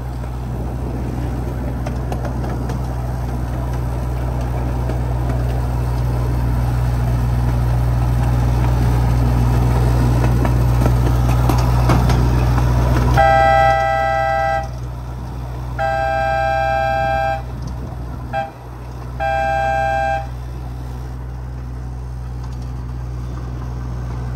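Miniature ride-on train running with a steady low drone and rising rumble as it moves along the track. About halfway through, its horn sounds long, long, short, long: the standard grade-crossing signal.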